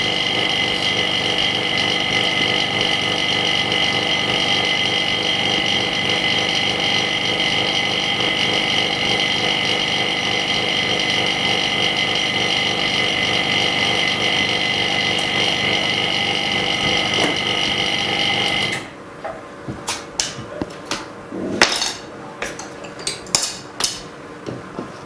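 A steady electrical machine hum with a high whine runs loud and unchanging, then cuts off suddenly about nineteen seconds in. After that come sharp, scattered clicks and scrapes from hand tools working the cracked glass off a phone's LCD.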